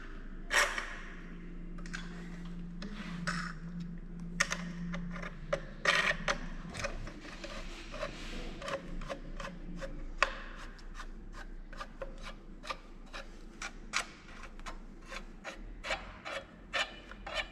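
Rolled sheet-metal pipe being handled and clamped into a pipe seaming machine's head: many quick clicks, taps and scrapes of metal on metal. A low steady hum runs under it and stops about seven seconds in.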